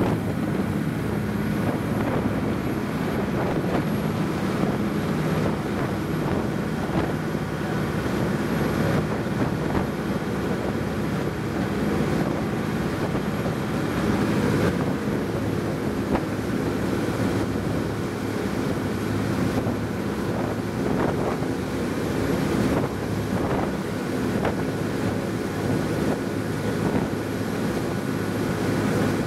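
Motor launch under way: its engine runs steadily as a low drone, mixed with the rush of the wake and wind buffeting the microphone.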